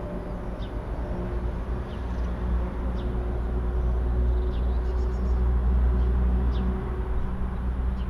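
Low, steady rumble of a heavy engine or machinery out of sight, with a faint hum, swelling a little midway through. Short high bird chirps come every second or two over it.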